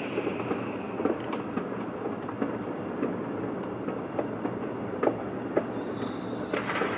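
Fireworks going off across the city: a steady rumble of many distant bangs, with sharper pops and crackles at irregular moments.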